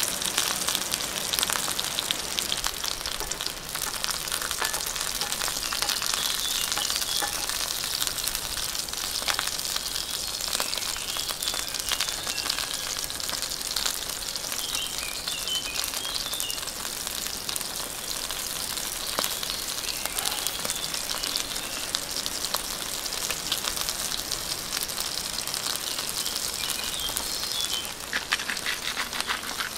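Wagyu ribeye steak and vegetables frying in hot oil in a cast iron pan, with a steady sizzle full of fine crackles and spits.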